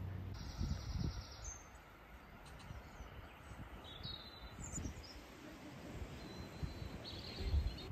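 A few short, high bird chirps scattered over outdoor background noise, with low rumbles now and then, loudest about a second in and near the end.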